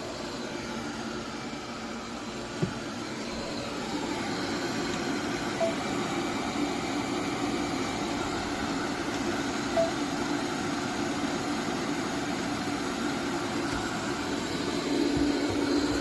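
ILIFE A12 Pro robot vacuum running, a steady whir of its suction fan and brushes, with a few brief clicks.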